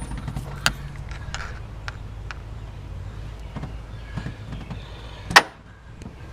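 Scattered light metallic clicks and knocks of a socket on a swivel being worked on an oil pressure sending unit, with one sharp, louder click about five seconds in. A low steady hum underneath stops at that click.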